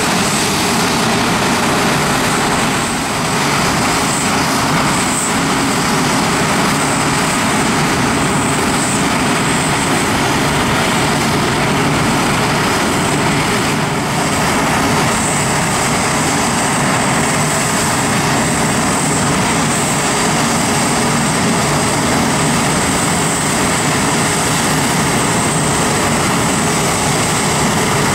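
Boeing 747-8F's four GEnx turbofans running at taxi power: a steady loud jet rumble with a thin high whine on top, the whine growing steadier about halfway through.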